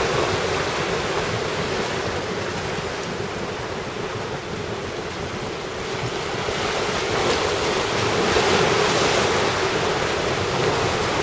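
Rough sea surging and breaking, the swell raised by a typhoon's outer winds, with wind buffeting the microphone. The surge dips a little in the middle and grows again toward the end.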